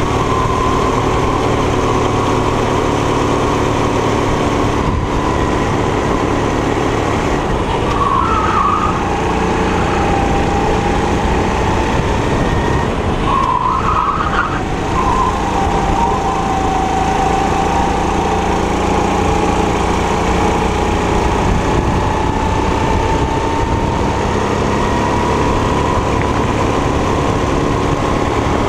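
A 270 cc four-stroke kart engine running hard on track: its revs sink in the middle stretch, then climb steadily toward the end. Two brief squeals come about eight and fourteen seconds in.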